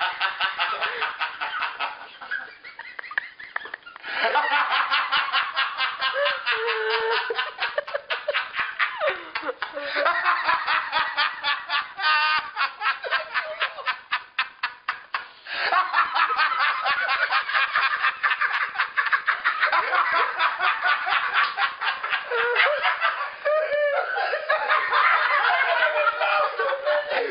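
Loud, hearty laughter in long fits of rapid 'ha-ha-ha' pulses, with brief pauses for breath: deliberate laughing done as an exercise in laughter.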